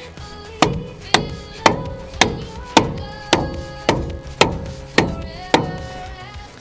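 Background music with a steady beat of sharp percussive hits about twice a second and a plucked melody between them.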